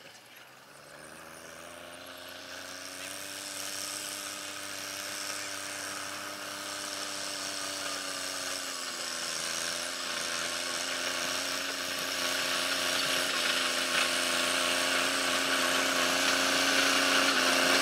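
John Deere 5045D tractor's three-cylinder diesel engine running under load as it pulls a disc plow. The engine note is steady and grows louder as the tractor approaches, dipping slightly in pitch about halfway through.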